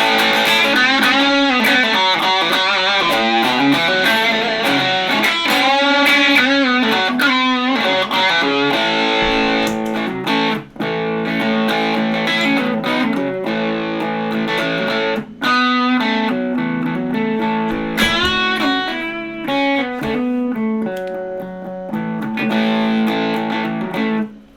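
Les Paul electric guitar playing a distorted lead through a Mojo Mojo overdrive boosted by a Tube Screamer into a small amp. It plays single-note lines with bent and held notes and stops suddenly at the end.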